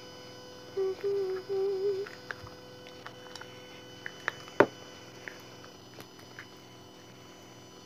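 A girl humming a few short steady notes about a second in. A pencil stirring thick slime in a small plastic pot makes faint ticks and taps, with one sharp click near the middle.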